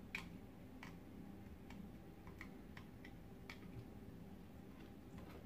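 Faint, irregularly spaced light clicks, about seven in five seconds, from hand work with a tool on a small plastic part, over a faint steady low hum.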